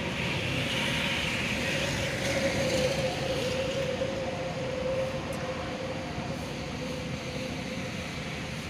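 Steady mechanical rumble of a passing vehicle with a held mid-pitched tone, swelling about two to three seconds in and easing off toward the end.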